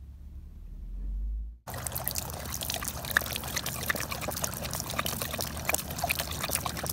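A low rumble, then from about two seconds in, water running from an outdoor tap while a dog laps at the stream, with many small splashy clicks.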